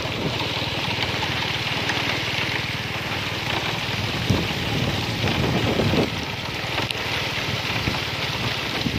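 Small vehicle engine running steadily as it moves, under a steady hiss of wind on the microphone.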